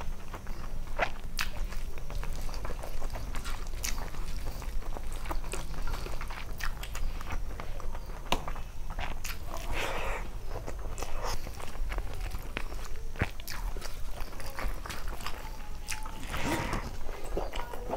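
Close-up eating sounds of rice and curry eaten by hand: wet chewing and mouth smacks, with many small sharp clicks, and fingers working the rice on a steel plate.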